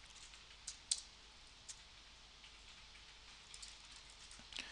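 Faint computer keyboard keystrokes: a few single clicks in the first two seconds, then a quick run of key presses near the end, over a low steady hiss.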